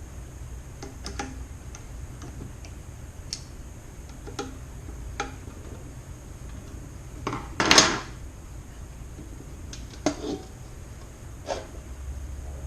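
Scattered light metallic clicks and taps from a hand tool tightening the stepper motor's mounting screws while the timing belt is held in tension, with one louder clank a little past halfway, over a low steady hum.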